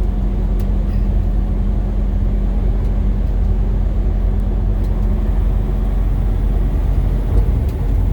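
Steady low rumble of a car driving, heard from inside the cabin, with a constant drone from the engine and tyres.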